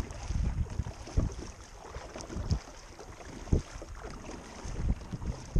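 Wind buffeting the microphone of a camera on a kayak on choppy water, a steady low rumble that swells in gusts, with a few sharp knocks.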